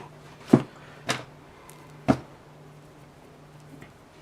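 A few sharp knocks and clunks of small objects being handled and set down on a hard surface, the loudest about half a second in, the last about two seconds in, with a faint steady hum underneath.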